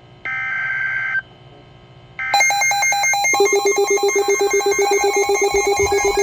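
Emergency Alert System tones: a burst of digital data-header squeal lasts about a second, and after a short gap a second burst begins. From about two seconds in, a loud, rapidly pulsing electronic alert tone with a ringing, buzzy quality starts and keeps going.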